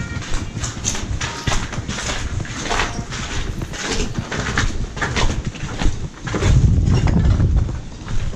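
Footsteps crunching and scuffing over rubble and debris on a concrete floor, in a quick irregular run of clicks and crackles. About six seconds in, a heavier low rumble rises for a second or so and becomes the loudest sound.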